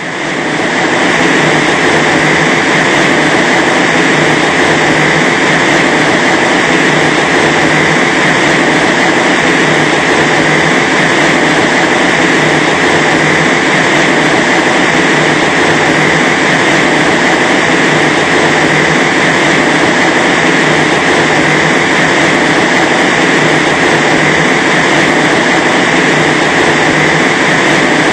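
Wind machine blowing air at over 80 mph against a fence panel: a loud, steady rush of wind noise that comes up fast in the first second and then holds unchanged.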